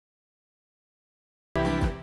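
Silence, then a brief musical sting from an outro logo jingle: a chord that starts suddenly about one and a half seconds in and cuts off half a second later.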